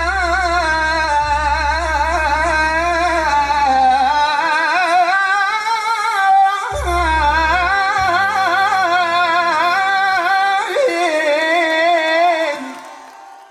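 A man singing a heavily ornamented, wavering melody with keyboard accompaniment and long deep bass notes. The music fades out near the end.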